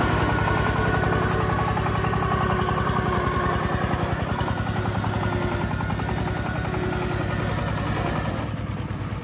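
Công nông farm truck's single-cylinder diesel engine chugging with a fast, steady firing beat as the truck drives away over muddy ground, slowly fading.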